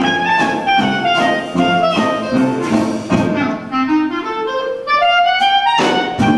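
Clarinet solo over a Dixieland jazz band's accompaniment. In the second half the clarinet plays a long rising run, and the full band comes in with a loud accent just before the end.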